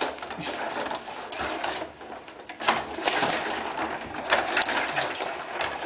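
Rod-operated table hockey game in play: the control rods sliding and twisting, the plastic players and puck clacking against each other and the board in a fast, uneven stream of clicks and rattles, with louder flurries of action every second or so.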